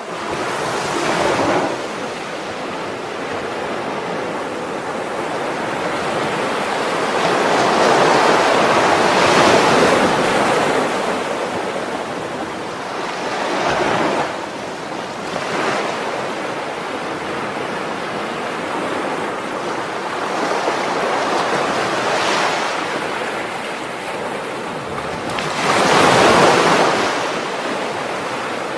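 Sea waves breaking and washing in, a continuous surf roar that swells and ebbs with each wave, loudest about a third of the way in and again near the end.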